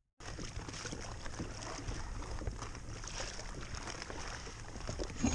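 Wind on an action-camera microphone and choppy water slapping against a plastic kayak's hull, with many small ticks and a sharper knock near the end.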